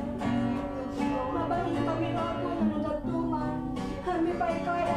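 Worship music: a strummed acoustic guitar with sustained chords under it.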